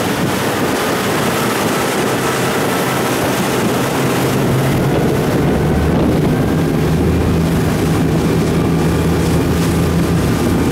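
Motorboat engine running steadily under wind buffeting the microphone and waves splashing against the hull; the engine hum grows louder about halfway through.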